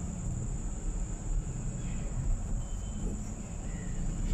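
Insects shrilling in one steady, unbroken high drone, over the low rumble of the car the sound is heard from.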